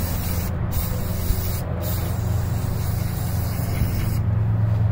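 Aerosol cleaner sprayed into a small engine's carburetor float bowl: a hissing spray in three spurts with short breaks, the last and longest stopping about four seconds in. A steady low hum runs underneath.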